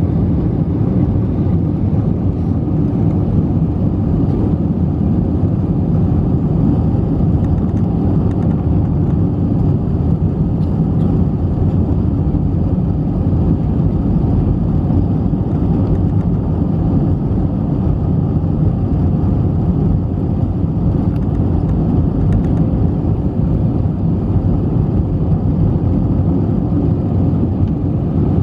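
Steady cabin noise of an Airbus A320 climbing after takeoff, heard from inside the cabin: a deep, even drone of engines and rushing air that does not change.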